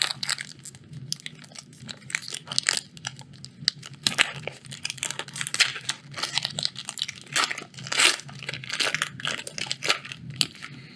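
Foil wrapper of a Magic: The Gathering draft booster pack being torn open and crinkled, with many sharp crackles throughout.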